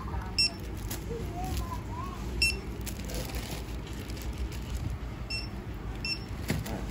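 Barcode scanner at a point-of-sale register beeping four short, high beeps as items are scanned, over a steady low hum of the store.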